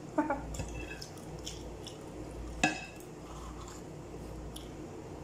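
Eating sounds: fingers pulling apart sauce-coated goat trotters and tearing flatbread over a glass dish, with a few short wet clicks near the start and one sharper knock about two and a half seconds in.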